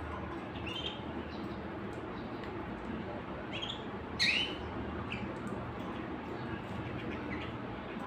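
Caged canaries giving a few short, separate chirps rather than a full song, the loudest about four seconds in, over a steady low background hum.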